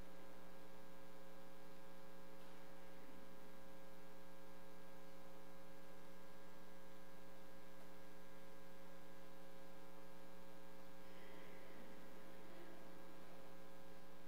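Steady electrical mains hum: an unchanging buzz made of several evenly spaced tones.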